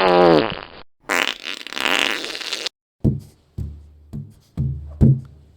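A string of stock sound effects: a fart sound effect with falling pitch, then a noisy hiss-like burst of about a second and a half, then a run of heavy bass hits about two a second.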